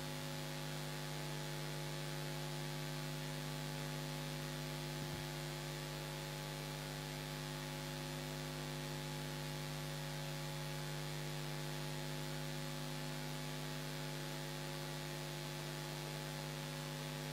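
Steady electrical mains hum with a faint hiss, unchanging throughout, with one faint tick about five seconds in.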